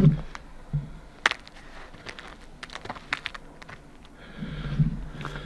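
Scattered, irregular light clicks and crackles, with a few low thumps near the start and a short low hum near the end.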